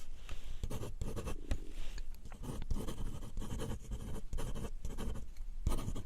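Pen scratching on paper in quick, irregular strokes, like notes being jotted down.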